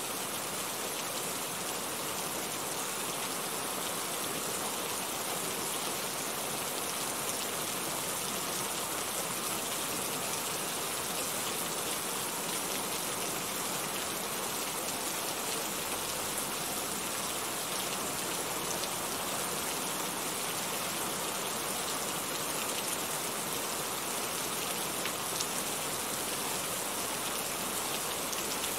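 Steady rain, an even hiss of falling drops with a few individual drops ticking now and then.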